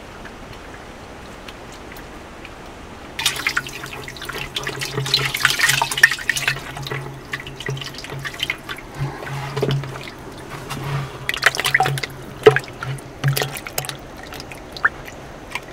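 A hand sloshing and squelching in buttermilk at the bottom of a wooden churn, gathering the churned butter into a lump. Irregular wet splashes and drips start about three seconds in.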